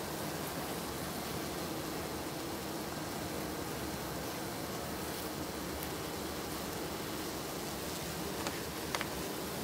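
A steady hum of many honeybees buzzing close by, with two faint clicks near the end.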